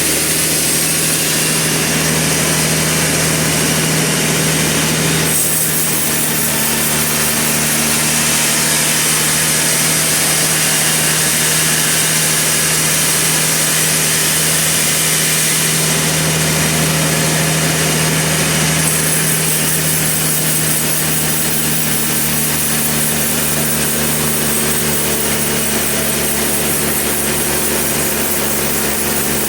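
Sawmill saw running and cutting through a large trembesi (rain tree) log, a steady sawing noise over the constant hum of the mill's engine.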